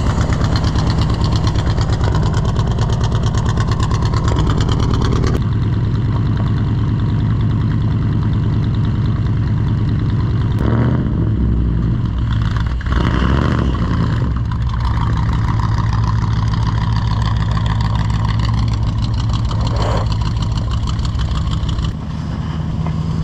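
1983 GMC K2500 pickup's engine running as the truck drives, loud and steady with an even firing pulse. The sound shifts briefly about halfway through as the throttle changes.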